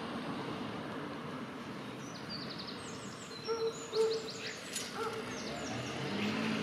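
Common starling singing: runs of rapid high clicks and chirps from about two seconds in, with a few lower whistled notes, the loudest, a little later. A steady background noise runs under it.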